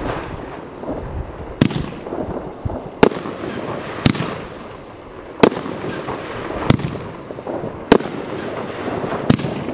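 PGE consumer firework cakes firing shot after shot, a sharp bang about every second and a quarter, seven in all, with crackle and hiss from the burning stars between the bangs.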